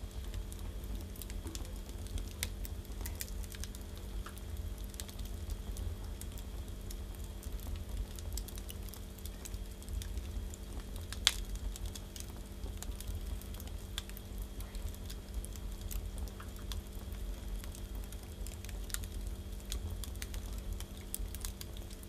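Firewood burning in a Russian brick stove, crackling with scattered sharp pops over a steady low rumble of the flames. One loud snap comes about eleven seconds in.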